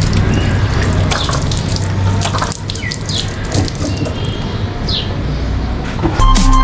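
Water running from a tap onto a bicycle wheel as it is rinsed: a steady rushing splash. Music comes in near the end.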